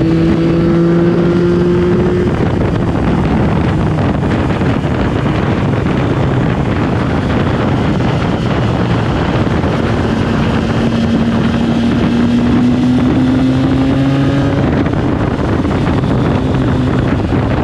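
Triumph Tiger Sport 660's three-cylinder engine pulling under way, its note rising gently at the start and again for several seconds near the middle, under heavy wind noise on the microphone.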